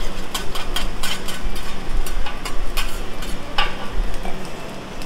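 Metal spatula and fork clattering on a hot steel hibachi griddle in quick, irregular clicks, over food sizzling on the cooking surface.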